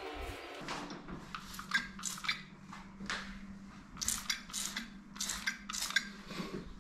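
Hand-held plastic trigger spray bottle squirted again and again at a fly: a quick series of about a dozen short hissing sprays.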